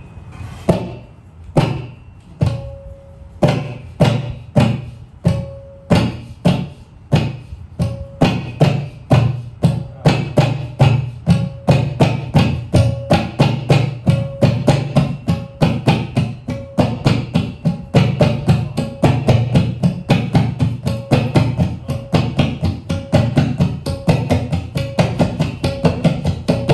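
Tabla imitating a train pulling away: slow, widely spaced strokes that speed up into a dense, fast, even rhythm, with a ringing higher drum note coming back again and again.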